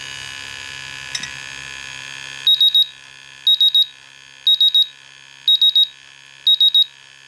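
MultiRAE Pro gas detector sounding its high alarm as its probe meets gasoline vapors in a jar: groups of three quick, high-pitched beeps about once a second, starting about two and a half seconds in, over a steady hum. The alarm means the VOC and LEL readings have gone past the meter's alarm limits, with the LEL near 100%.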